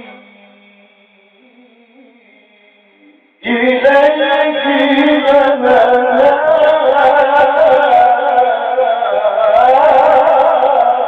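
Male reciter chanting the Quran in a drawn-out melodic style. The tail of the previous phrase dies away in an echo, then about three and a half seconds in he starts a long, ornamented phrase that bends up and down in pitch without a break.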